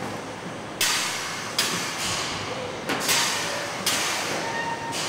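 Assembly-line work noise: a run of sudden hissing bursts, about one a second, each fading over most of a second, over a steady factory hum.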